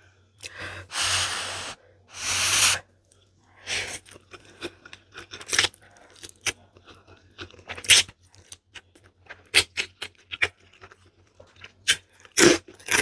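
A person slurping up a handful of spicy instant noodles in two long, loud slurps about a second in, then chewing with many small wet mouth clicks and smacks. A few louder crunchy bites come near the end, from a piece of crispy fried salmon skin.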